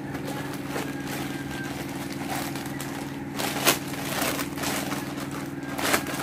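Plastic courier pouch being handled and torn open, crinkling in a few sharp rustles, the loudest about three and a half seconds in and near the end, over a steady low hum.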